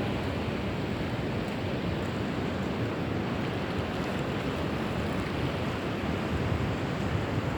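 Ocean waves washing onto a beach, a steady continuous rush of surf.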